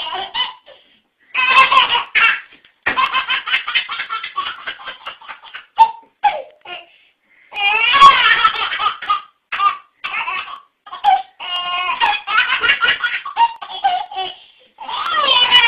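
A baby laughing in repeated fits of high-pitched belly laughs, with short pauses between the fits.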